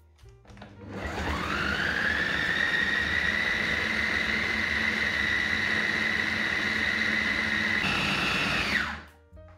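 Kenwood kitchen machine's food processor attachment chopping raw chicken breast, bread and onion. The motor's whine climbs to speed about a second in and runs steady, steps a little higher in pitch near the end, then winds down and stops.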